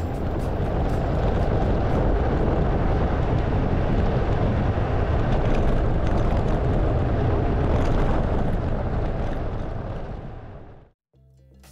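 Steady rush of wind and tyre noise from a motorcycle riding fast on a gravel road, as picked up by an onboard camera. It fades out near the end.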